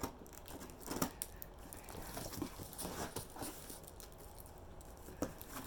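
Cardboard shipping box being opened by hand: flaps pulled open and contents or packing paper rustling and crinkling, with a few sharp knocks and clicks, the clearest about a second in and near the end.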